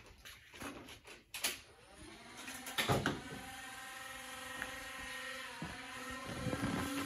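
Knocks and footsteps at first, then a small electric motor whirring steadily from about three seconds in: a flywheel Nerf blaster being revved.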